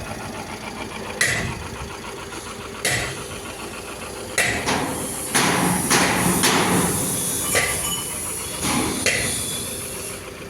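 Hammer striking sheet metal in an irregular rhythm of about ten blows, each followed by a short metallic ring, over a steady background hum.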